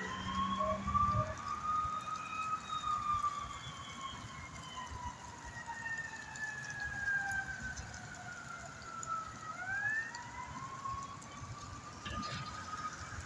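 Federal Q mechanical siren on an ambulance running code 3. It winds up, coasts slowly down in pitch for about seven seconds, then winds up again near the ten-second mark.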